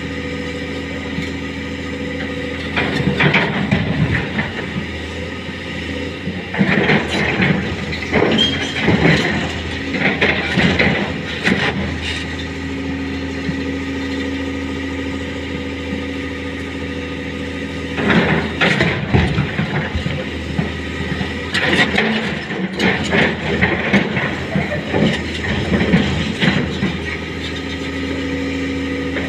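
Hydraulic excavator's diesel engine running steadily, with several stretches of louder, irregular clattering and scraping as the machine works.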